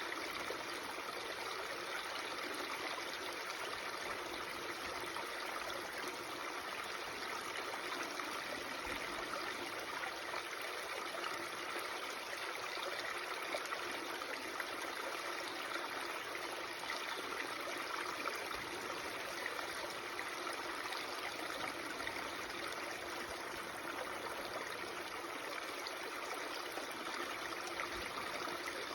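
Babbling stream, its water running steadily with a constant gurgling rush.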